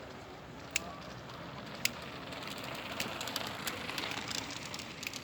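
Mountain bikes rolling over a rough track: a few sharp clicks, then a crunching hiss with many clicks that swells about two seconds in and eases near the end, as riders pass.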